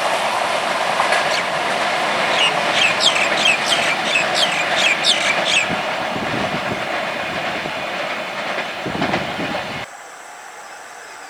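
Indian Railways express train running past at speed: a steady loud rush of wheels on rail, with a run of about ten short high-pitched squeaks from about two to six seconds in. The train sound cuts off abruptly near the end, leaving only a faint background.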